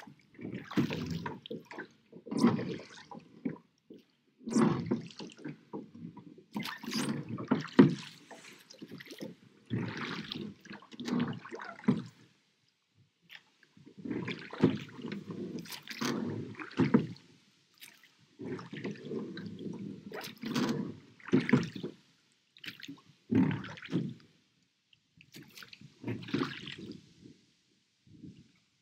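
Oars of a small rowing boat dipping and pulling through lake water, with splashing and dripping from the blades, in a loose rhythm of strokes about every two seconds, pausing briefly twice.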